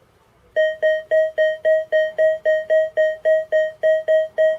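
AKA Berkut-5 metal detector giving a fast run of identical mid-pitched beeps, about four a second, starting about half a second in: its target tone for a small silver signet ring passed over the search coil, which reads around 65 on the VDI.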